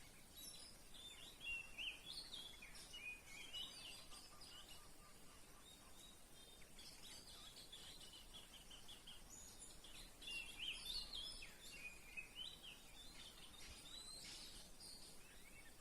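Songbirds singing faintly: spells of varied high chirps and short whistled phrases, in three main bouts, over a low outdoor hiss.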